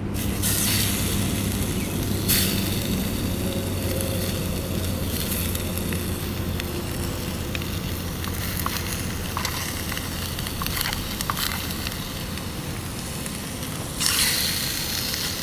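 Freshwater drum fillets sizzling in a hot, spray-greased skillet, a steady hiss that flares up about two seconds in and again near the end, over a low steady hum.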